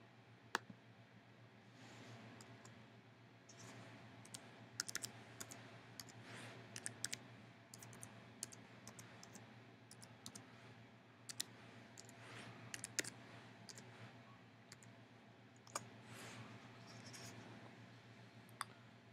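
Faint, scattered clicks of a laptop keyboard and trackpad as a command and a password are entered: single clicks and short runs of keystrokes, over a low steady hum.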